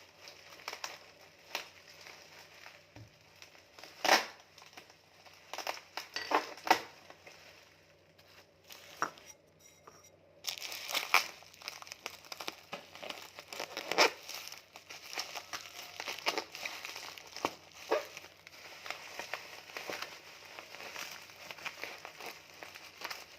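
Parcel packaging crinkling and crackling as it is handled and opened, with irregular sharp clicks among the rustling; the crinkling turns denser about ten seconds in.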